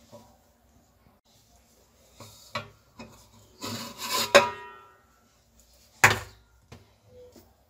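Metal cake tin lifted out of a large aluminium steaming pot with a cloth: a couple of knocks, then the tin scraping against the pot with a brief metallic ringing, the loudest part, and a single sharp clank about six seconds in as it is set down.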